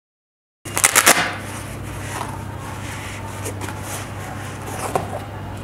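A short stretch of total silence, then a cluster of sharp rustles and clicks about a second in as a flash's black padded carry pouch is handled, followed by faint handling noise and a small click near the end over a steady low hum.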